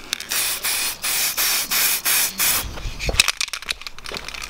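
Dulux aerosol spray-paint can hissing in a run of short bursts as a light coat is sprayed on. A few sharp clicks and a low thump come about three seconds in.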